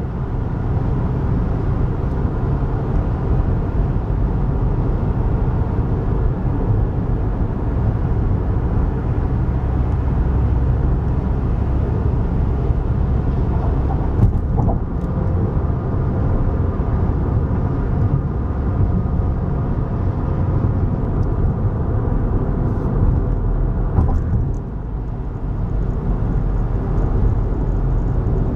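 Cabin noise of a car being driven: a steady rumble of tyres and engine, with the level dipping slightly a few seconds before the end.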